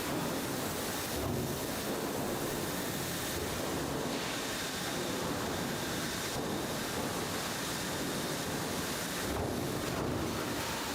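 Steady, even rushing noise with no distinct knocks, tones or rhythm.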